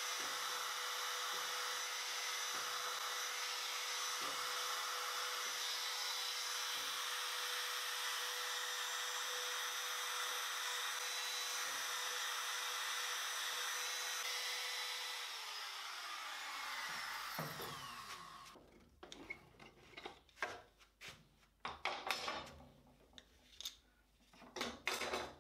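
Trim router fitted with a 1/8-inch cutter running at full speed while routing butt-hinge recesses in timber through a jig: a steady high whine for about fifteen seconds, then it is switched off and winds down. A few short knocks follow as the tools are handled.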